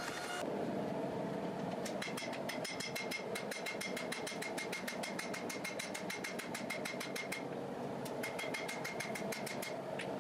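Hand hammer striking a glowing steel knife blank on an anvil, a quick even run of ringing blows about four a second beginning about two seconds in. A steady mechanical roar runs underneath.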